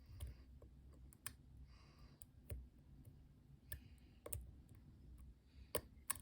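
Faint, irregular small metallic clicks and ticks of a dimple pick and tension wrenches working the pins inside an MCM AS6 dimple lock cylinder, scattered a few at a time.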